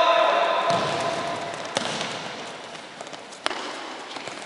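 Echoing sports-hall sound: a loud held, pitched call that stops under a second in and rings on in the hall, then two sharp knocks like a ball being kicked, at about two seconds and again at about three and a half.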